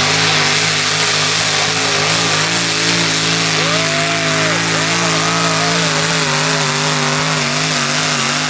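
Mini modified pulling tractor's engine running flat out as it drags a weight-transfer sled, the pitch wavering slightly as the load changes.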